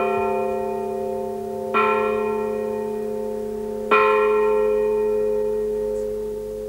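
Church bell ringing, struck twice about two seconds apart, each strike sounding on and slowly fading away.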